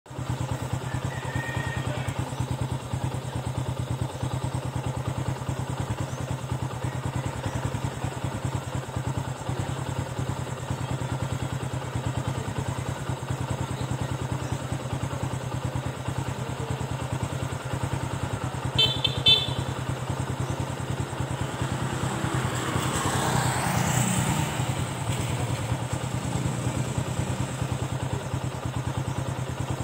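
A steady, low engine hum runs throughout, like a small motor idling close by. A little before two-thirds of the way in come two short high beeps. Soon after, a vehicle swells past on the road and fades away.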